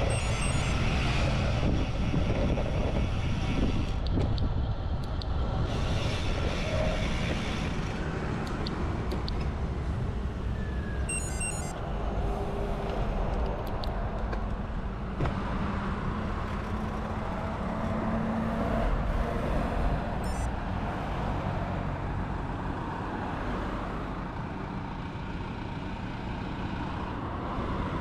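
Road and wind noise on a road bike ride, with motor vehicles passing nearby. A short run of beeps sounds about eleven seconds in.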